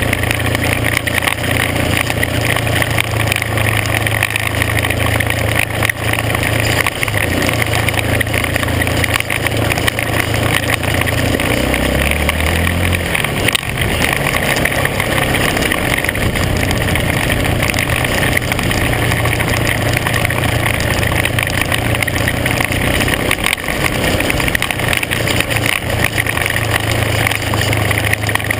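Engine of an off-road vehicle driving on a gravel dirt road, its low hum under a steady rushing noise. The engine note steps down about twelve seconds in, stays faint for a while, and comes back strongly near the end.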